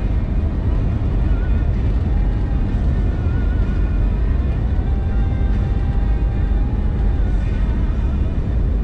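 Steady in-cabin road noise of a Mitsubishi Montero Sport cruising at highway speed: a constant low rumble of tyres and wind through the cabin. Faint music with held, wavering notes sits underneath.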